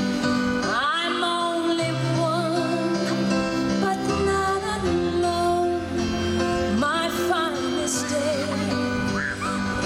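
Music with singing: a voice holding long, wavering notes over sustained chords and a steady bass line.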